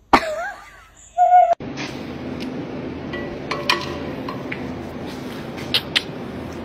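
Siberian husky giving a wavering, gliding 'woo' howl in imitation of a human laugh, ending in a short held note. About a second and a half in it cuts off to a steady hum with a few sharp clicks.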